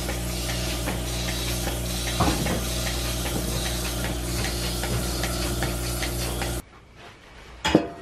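Goat milking machine running: a steady pump hum with regular pulsator ticking and a knock about two seconds in. It cuts off suddenly two thirds of the way through, and near the end a stainless milk pail on a hanging scale gives a sharp metallic clink.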